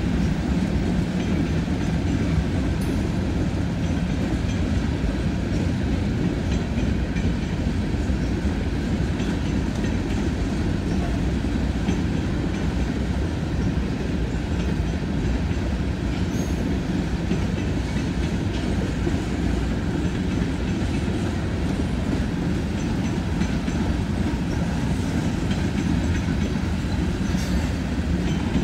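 Freight train of covered hopper cars rolling past at steady speed: a continuous low rumble of steel wheels on rail, with faint clicking as the wheels cross rail joints.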